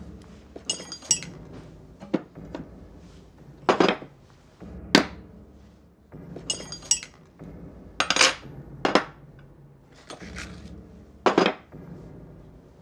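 Metal hand tools (a hacksaw, a cordless drill, a hammer, drill bits, pliers) set down one at a time on a wooden counter: about ten separate knocks and clinks, a couple of them ringing briefly.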